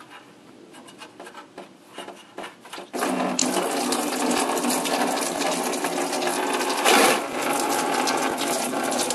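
Radiator drain valve being turned by hand with faint clicks, then about three seconds in coolant suddenly starts pouring out and splashing steadily into a drain pan, with a louder gush near the end.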